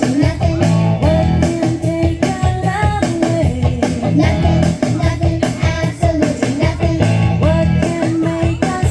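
Background music: an upbeat song with a singer over a steady instrumental backing.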